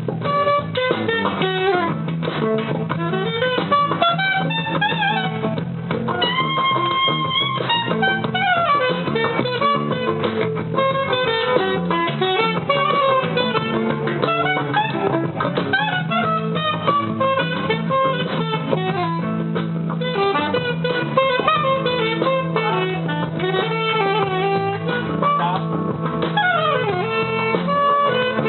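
A live band playing an instrumental passage, with a guitar carrying the melody over a steady low accompaniment.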